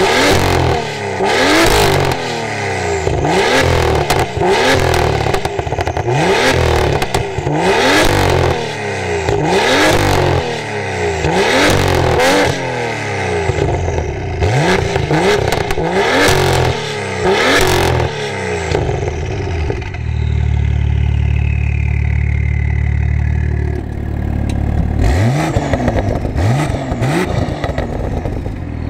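BMW M2's turbocharged straight-six revved hard through a decatted Fi valved exhaust with the valves open: a quick series of sharp revs, about one a second, crackling as each falls away. It then settles to a steady idle for a few seconds before two more blips.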